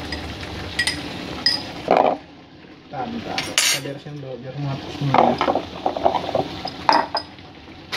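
Metal kitchenware clinking and knocking: utensils and cookware handled around an aluminium wok, with several separate sharp clinks, a few of them ringing briefly.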